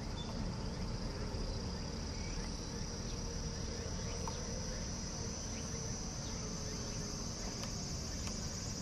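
Steady, high-pitched insect chorus that rises slightly in pitch near the end, over a constant low background rumble, with a few faint clicks.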